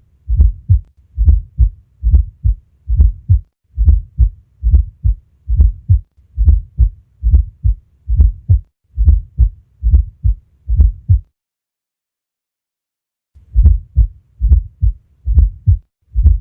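Recorded heartbeat as heard through a stethoscope: low, dull thumps repeating about once every 0.8 seconds. They stop for about two seconds a little past the middle, then resume.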